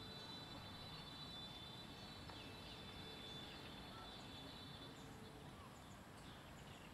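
Faint outdoor background hiss with a steady high hum and a few soft, short bird chirps.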